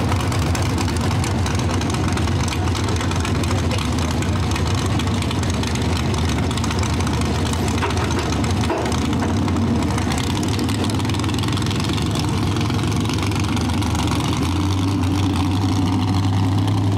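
Mega truck engine running steadily with a deep low hum, which grows somewhat stronger about two-thirds of the way through.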